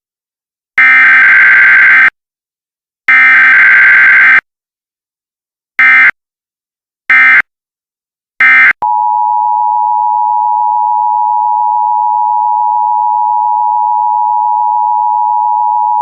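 Emergency Alert System header: two more loud, screeching digital data bursts about a second and a half long, then three short bursts. About 9 s in, the steady two-note EAS attention tone (853 and 960 Hz) starts and holds unbroken.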